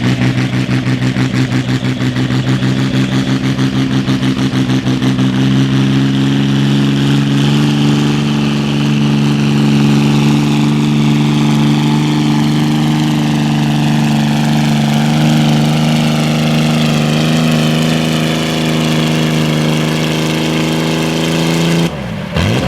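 John Deere farm tractor engine working at full load while pulling the sled, with a regular pulsing at first that smooths into a steady, slightly rising drone. It drops off suddenly near the end as the throttle is let off.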